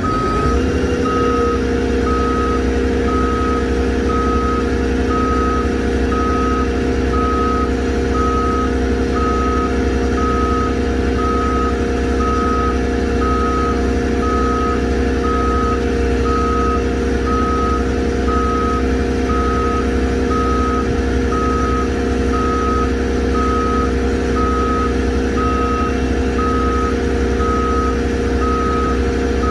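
A truck's reverse alarm beeping steadily, about once a second, over the steady drone of its engine, which comes up to speed in the first second.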